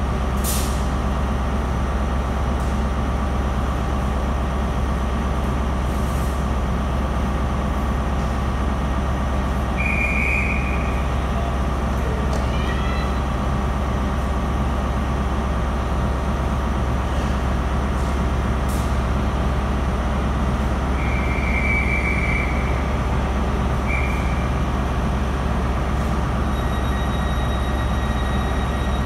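Intercity 125's Class 43 diesel power cars idling steadily with the train standing at the platform, a constant low rumble and hum. Short high-pitched tones sound briefly about ten seconds in and twice more past twenty seconds.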